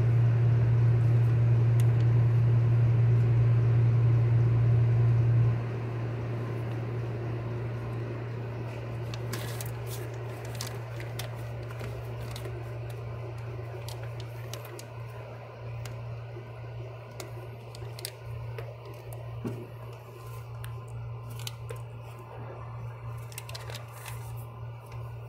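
A steady low hum that drops sharply in level about five seconds in and goes on more quietly, with scattered light clicks and handling noises through the second half.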